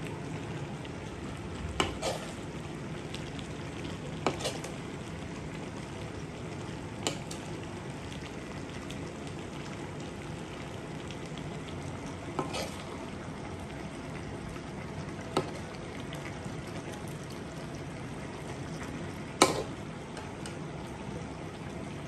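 Pig ears sizzling and bubbling in a soy-vinegar sauce in a wok, a steady hiss. A metal ladle clinks against the wok every few seconds, the loudest clink near the end.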